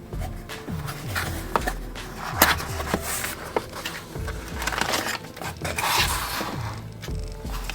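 Background music, with packaging being handled: rustling and scraping, with a few sharp clicks.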